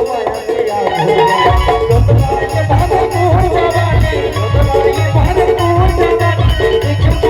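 Instrumental folk music from a live band: a wavering melody over a steady, heavy drum beat, with a shaker-like rattle.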